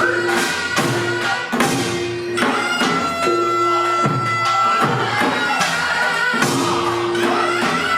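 Korean traditional folk dance music for the deotbaegi mask dance: a reed wind instrument holds long notes over a steady rhythm of drum and gong strikes.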